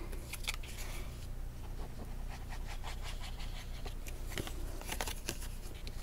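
Cardstock being handled and laid onto a paper card mechanism: light paper rustles and small taps and clicks, scattered in a few short clusters.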